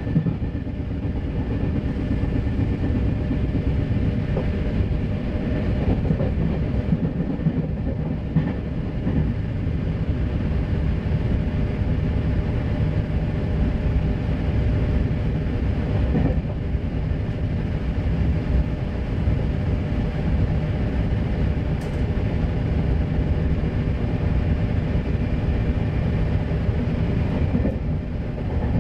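Interior noise of an RER B electric multiple-unit commuter train running at speed: a steady low rumble of wheels on rails heard inside the passenger car, with a few faint clacks.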